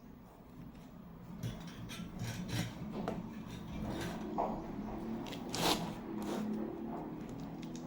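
Irregular scraping and rubbing of small hard parts being worked by hand, with a few light clicks, starting about a second and a half in.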